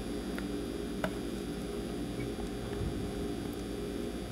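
Steady low electrical hum, with a sharp faint click just after a second in and a soft low bump near three seconds.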